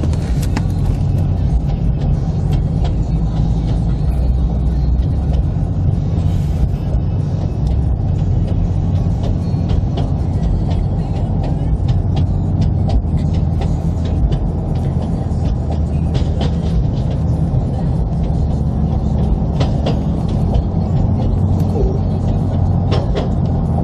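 Steady low rumble of a car driving, heard from inside the cabin, with scattered faint ticks over it.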